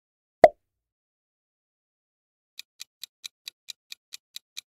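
A single short thump about half a second in, then clock-style ticking, about four ticks a second, starting a little past halfway: a quiz countdown timer sound effect.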